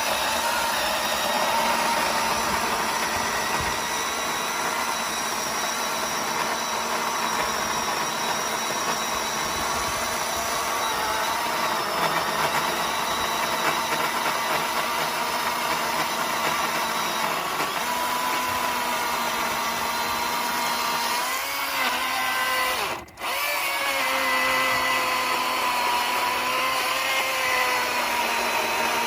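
Milwaukee Fuel cordless chainsaw running under load, cutting through a big log: a steady electric motor whine whose pitch shifts as the load changes. About 23 s in it cuts out for an instant and starts again.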